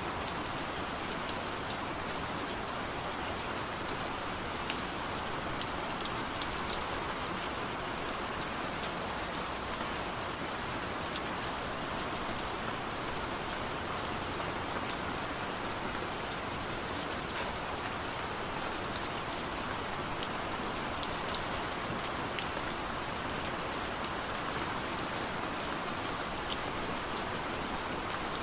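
Steady rain falling: a dense, even hiss with scattered sharper drop taps throughout.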